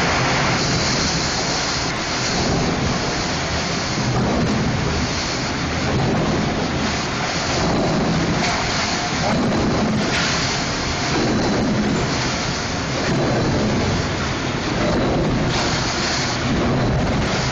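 Loud, steady mechanical noise with a rushing hiss from an industrial paper-roll shredder and the forklift feeding a roll to it; no distinct knocks or changes stand out.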